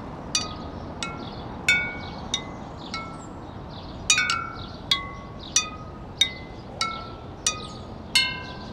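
Wind chimes ringing: a dozen or so separate struck tones at irregular intervals, roughly one every half second to a second, each ringing out and fading, over a steady background hiss.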